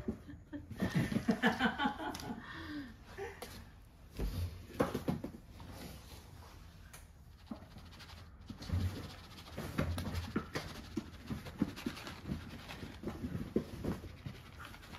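Cats walking through open cardboard boxes: scattered soft scuffs and taps of paws on cardboard, thickest in the second half. About a second in comes a short pitched voice sound that wavers up and down.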